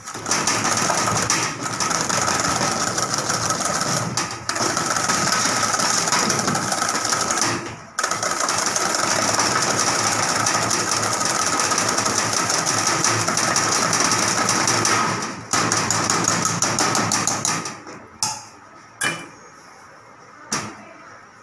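Electric hand mixer running steadily while whipping cream in a steel bowl, with a few brief pauses. The motor stops about three-quarters of the way through, and a few light knocks follow.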